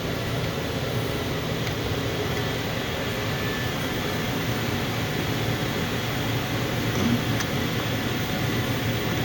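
Condensing gas furnace running with a steady fan hum and rush of air.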